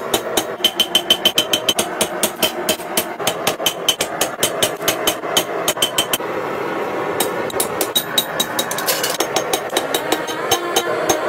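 Hand hammer forging a red-hot keris blade on a steel anvil: rapid hammer blows, several a second, many with a bright ring from the anvil, with a short break about six seconds in. A steady noise runs underneath.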